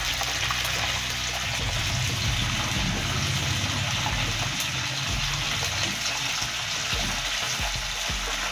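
Battered prawns deep-frying in hot oil in a wok: a steady hiss with fine crackling.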